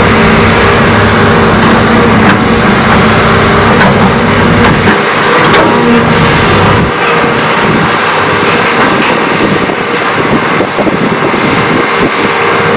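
Heavy diesel excavator engine running steadily at working speed, with a dense mechanical rush over it; its low engine note eases about five to seven seconds in.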